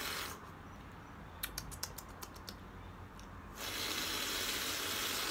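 Drinking coconut water straight from a cracked coconut shell: a run of small clicks as he swallows, then a steady hissing slurp for the last second and a half or so.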